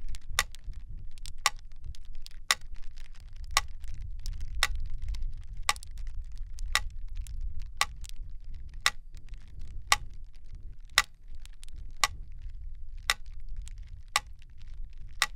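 Mechanical pyramid metronome ticking steadily, about one tick a second, over a low steady rumble.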